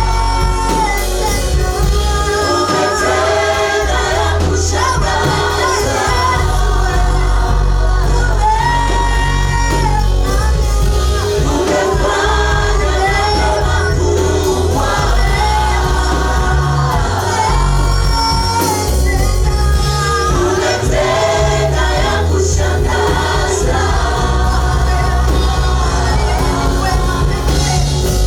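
A worship song sung by a group of voices over amplified band accompaniment with a heavy, steady bass line.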